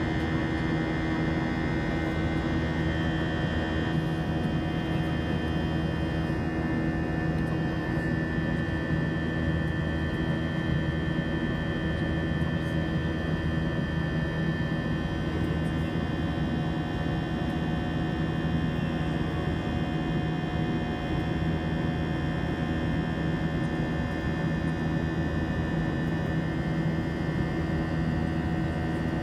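Airbus A320-200 cabin noise during the night climb-out: the jet engines and airflow make a steady drone with a constant low hum and a high whine. The high whine steps down slightly about three seconds in.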